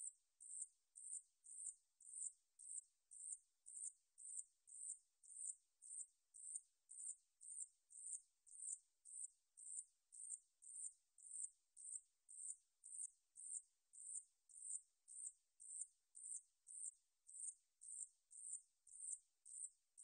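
Song of the 산여치 (a Korean shield-backed katydid): a high-pitched, buzzy chirp repeated steadily about twice a second.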